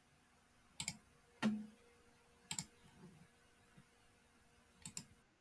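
Faint clicking on a computer while a video is being started: three quick double clicks spread over the seconds, with one duller knock about a second and a half in.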